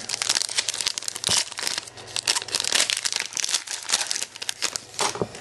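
Foil wrapper of a trading-card pack crinkling and tearing in the hands as it is ripped open, a dense irregular crackle that stops near the end.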